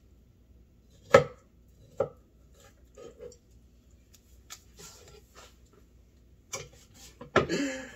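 Knife chopping fruit on a wooden cutting board: two sharp knocks about one and two seconds in, lighter scattered taps, then a louder clatter lasting about half a second near the end.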